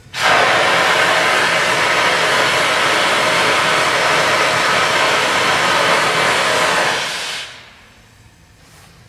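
Live-steam scale locomotive venting a loud, steady hiss of steam that starts suddenly and dies away after about seven seconds.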